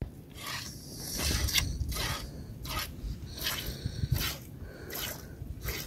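A cow being milked by hand: short hissing squirts of milk hitting a pail, about two a second, in an uneven rhythm.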